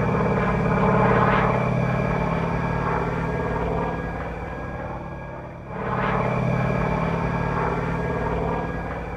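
Radio-controlled Pitts Model 12 aerobatic biplane in flight, its onboard sound system playing a radial-engine drone over the propeller noise. The drone slowly fades, then comes back louder about six seconds in.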